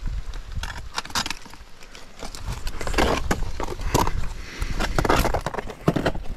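Climbing hardware and crampons on rock: metal carabiners and quickdraws clinking, and crampon points scratching and scraping on the rock as the climber moves, with a string of sharp clicks and several longer scrapes, the loudest from about the middle to near the end.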